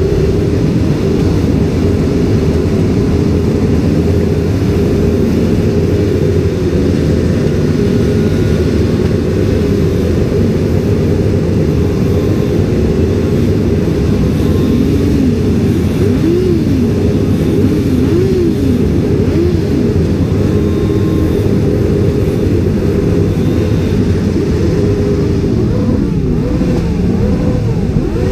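Motorcycle engines running loudly and steadily. From about halfway through they are revved up and down again and again, the pitch rising and falling about once a second, with more revs near the end.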